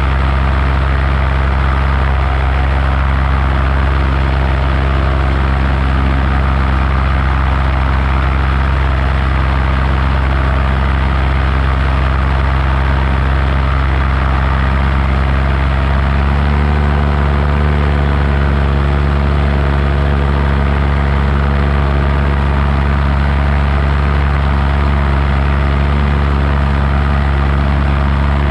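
Paramotor engine and propeller running steadily in flight; the engine note steps up slightly about two-thirds of the way through as the throttle is opened a little.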